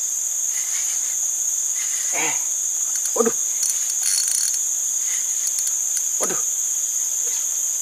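Steady high-pitched drone of forest insects, with a few brief lower sounds cutting through it about two, three and six seconds in.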